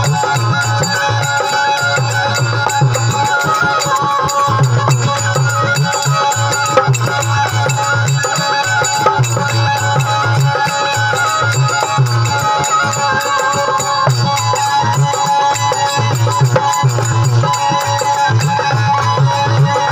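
Rajasthani devotional folk music: a steady hand-drum rhythm under a sustained melody line.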